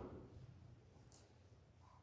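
Near silence: faint room tone with a low hum, and a brief faint high hiss about a second in.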